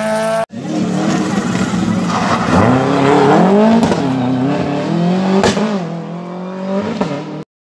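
Rally car engine revving hard through the gears, its pitch climbing and dipping with each shift, with a sharp crack about five and a half seconds in. A brief drop-out half a second in, and the sound cuts off suddenly near the end.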